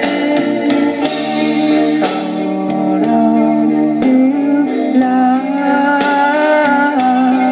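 A song with singing and guitar, played from a 45 rpm record on a 1954 RCA Victor HY-4 record player and heard through its small built-in speaker, with almost no deep bass.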